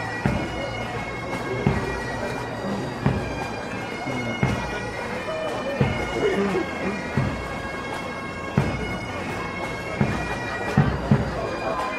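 Marching pipe band playing: bagpipes sounding their steady drones under the melody, with a bass drum thumping about every second and a half.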